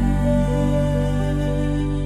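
Music: a slow melody of held notes over sustained low bass notes.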